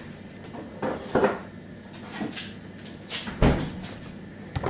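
Refrigerator door opened and then shut with a thud about three and a half seconds in, with a couple of lighter knocks before it.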